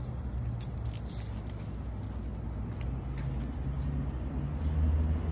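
Light metallic jingling of a dog's collar and leash hardware as the dog moves about, nose to the ground, in short clinks that thin out after about three seconds. A steady low hum runs underneath.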